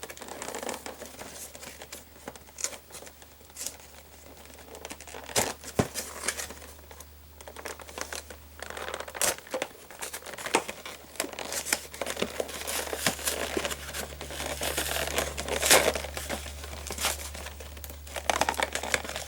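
Packaging of a Pokémon card collection box crinkling and tearing as it is pulled open by hand, with irregular rustles and sharp snaps that grow busier about halfway through; the box is slow to open.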